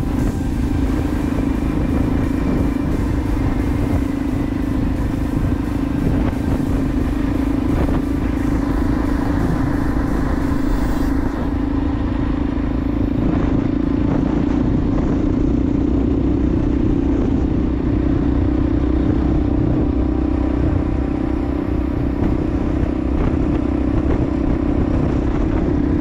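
Motorcycle engine running at a steady cruising speed, heard from on the moving bike, with wind noise on the microphone and road rumble.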